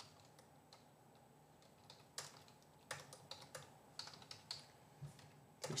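Faint typing on a computer keyboard: irregular single keystrokes, coming more often from about two seconds in.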